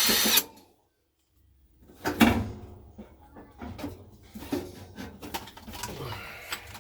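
A cordless drill whirring briefly and stopping about half a second in, then after a short pause a run of irregular knocks, clacks and rattles of dryer parts being handled, the loudest about two seconds in.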